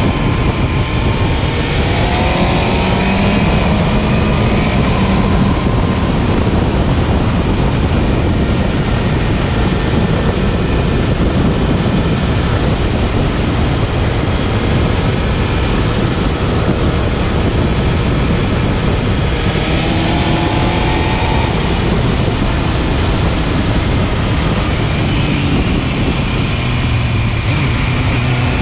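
Motorcycle engine at speed, recorded by a bike-mounted action camera and buried in heavy, steady wind rush. The engine note climbs in pitch about two seconds in and again about twenty seconds in.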